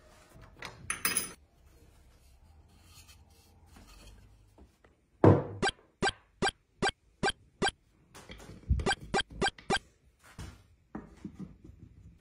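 Sharp wooden knocks and taps as small wooden dowel legs and turned lamp parts are handled on a workbench. A hard knock about five seconds in is followed by a run of about six even, sharp taps, then a few more knocks and small clicks near the end.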